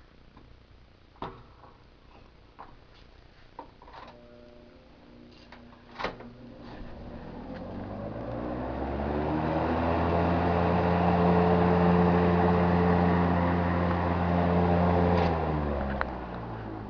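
GE model W22 box fan: a few clicks, then the motor's hum and the rush of air from the blades build up over several seconds as it comes up to speed. It runs steadily, then a click near the end and the sound falls away.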